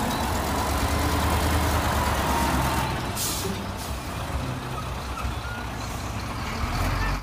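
Concrete mixer trucks' diesel engines running with a steady low rumble. A short air-brake hiss comes about three seconds in.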